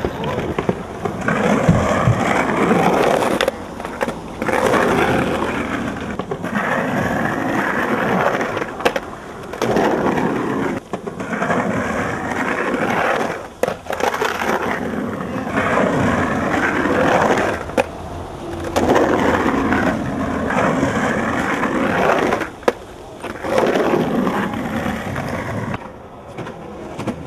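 Skateboard wheels rolling hard on concrete in several separate runs, broken now and then by sharp clacks of the board hitting and landing on ledges.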